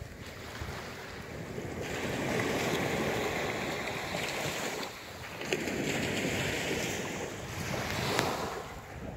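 Small sea waves breaking and washing up a sand-and-shingle beach, the surf swelling and easing in slow surges, with wind on the microphone.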